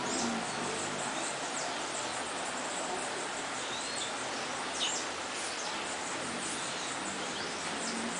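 Birds chirping: scattered short, high chirps, each falling quickly in pitch, the clearest almost five seconds in, over a steady outdoor background hiss.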